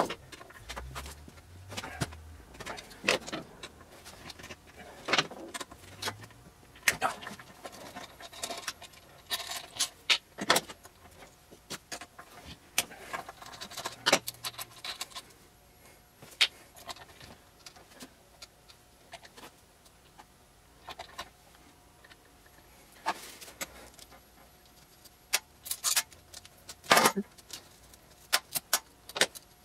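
Scattered metallic clicks and clinks of a hand tool and small metal parts being worked on a Belmont dental X-ray head in a metal pan, at an uneven pace, with the loudest knock near the end.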